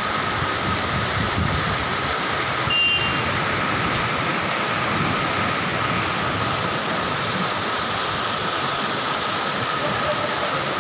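Steady rush of heavy cloudburst rain and muddy floodwater running over the road, with a thin steady high tone under it and a short high beep about three seconds in.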